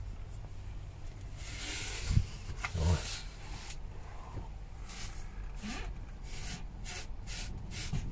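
A cloth rubbing over the stove flue pipe, wiping excess fire cement off the freshly sealed joint, in quick back-and-forth strokes about three a second through the second half. Two dull knocks come a couple of seconds in.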